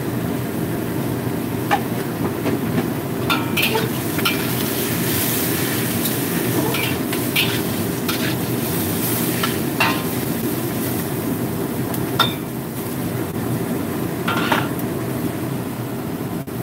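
Celery stir-frying in a wok: a metal spatula scrapes and clinks against the pan at irregular intervals over a steady sizzle, with a steady low hum underneath.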